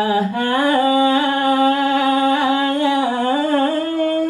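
A performer singing solo into a microphone with no accompaniment: one voice holding long, wavering notes with small ornamental turns, dipping and then stepping up to a higher held note near the end.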